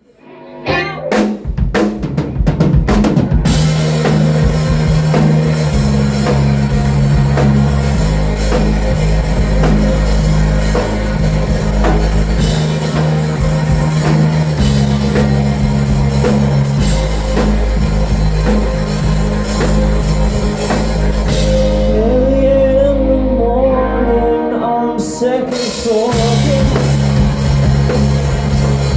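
A live rock band with drum kit, bass and electric guitars playing loudly. A few drum hits come first, then the full band comes in about three seconds in. Around twenty-two seconds the cymbals drop out briefly under a wavering guitar line, before the full band returns.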